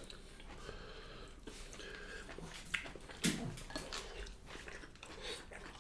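Quiet eating sounds: chewing and wet mouth smacks, with a few soft clicks scattered through and a brief low hum about three seconds in.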